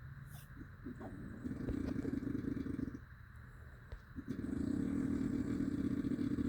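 A person snoring with a rattling, buzzing snore that sounds like a dirt bike: two long snores, the first starting about a second and a half in and the second from a little past the middle, with a quieter breath between.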